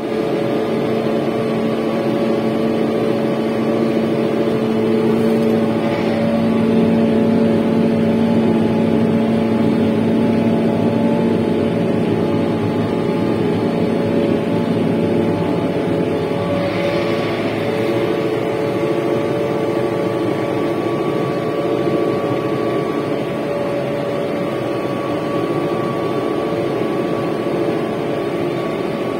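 Erkunt 125 CRD tractor's diesel engine running steadily under load while pulling a tillage implement, heard from inside the cab as a constant drone. A low hum in it fades out about halfway through.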